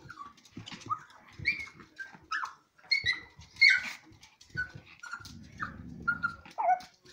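Dogs play-fighting: a string of short, high-pitched whines and yips, with a low growl a little after halfway through.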